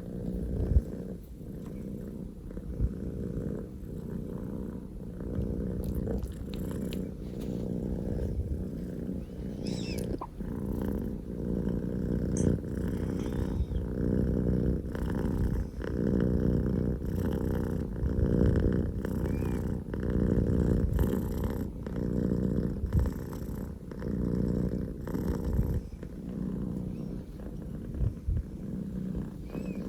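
Scottish Fold kitten purring very loudly, a deep steady rumble that swells and eases every couple of seconds with its breathing.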